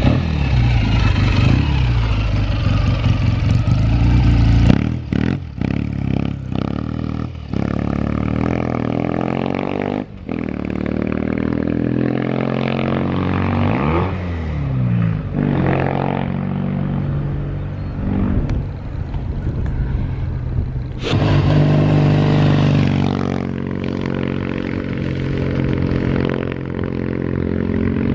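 Vintage Japanese vertical-twin motorcycle engine running on the road, revving and riding past, in several short clips joined by cuts. About 12 to 15 seconds in, the engine note rises and then falls as the bike goes by.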